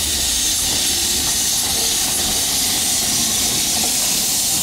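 Steady hiss of escaping steam from the steam locomotive 6201 Princess Elizabeth, an LMS Princess Royal Class Pacific, as it moves slowly past.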